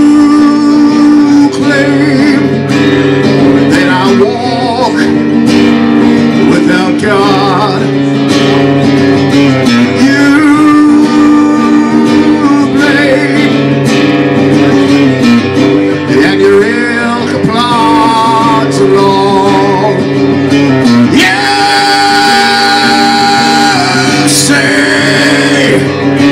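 A man singing live into a microphone over his own electric guitar, strumming a steady chord pattern. Near the end he holds one long note.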